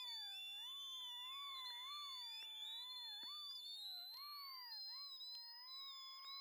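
Faint electronic background music: a single theremin-like tone wavering and gliding up and down about once a second, with thin steady high tones above it, some of which slowly rise.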